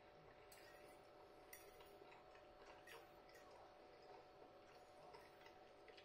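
Near silence: room tone with a few faint, irregular clicks.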